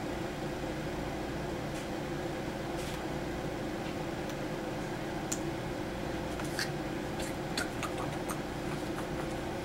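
Steady room hum, like a fan or air conditioner running, with faint light clicks of small plastic toy pieces being handled in the second half.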